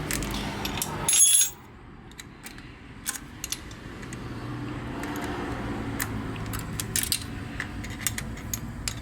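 Metal hand tools clinking and tapping against the motorcycle's engine parts: one loud, ringing metallic clink about a second in, then scattered light clicks.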